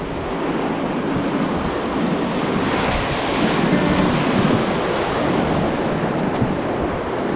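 Steady rush of river water, with wind noise on the microphone.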